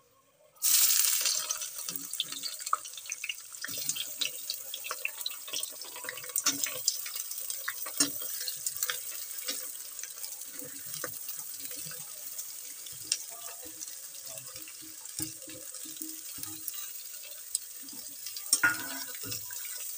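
Sliced onions and garlic dropped into hot oil in a metal kadhai: a loud sizzle starts suddenly about half a second in and carries on as a steady hiss. The steel spatula scrapes and clinks against the pan as the onions are stirred.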